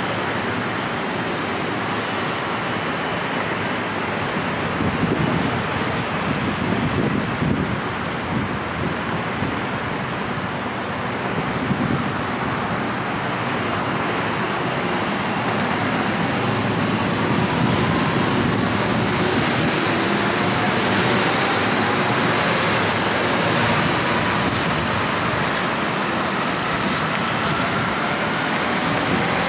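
Steady road traffic noise from a busy multi-lane road: a continuous rush of passing cars and other vehicles. A faint tone that slowly shifts in pitch runs under it in the second half.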